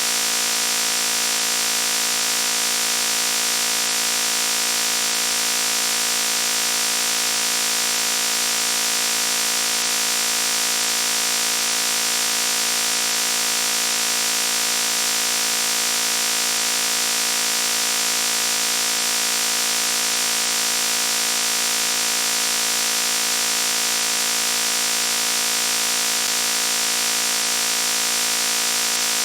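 Loud, harsh buzzing noise held at one unchanging pitch, with a bright hiss in the treble.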